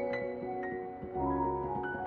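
Background music: gentle melodic instrumental with soft mallet-like notes.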